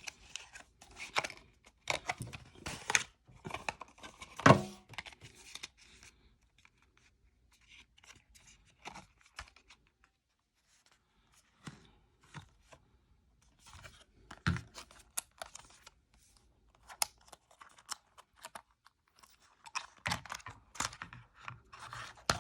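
Paper pull-tab tear strip being ripped off an Apple MagSafe Charger box, then intermittent tearing, crackling and scraping of the packaging as the box is opened. The sharpest tear comes about four and a half seconds in, with a quiet gap near the middle.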